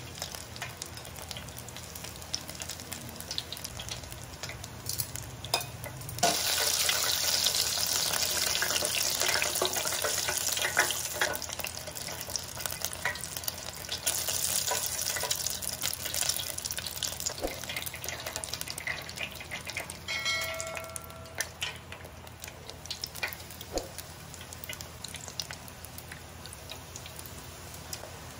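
Battered mussels deep-frying in hot oil in an electric deep fryer: a steady sizzle full of small crackles. It jumps much louder about six seconds in, swells again about fourteen seconds in, and eases off in the last few seconds.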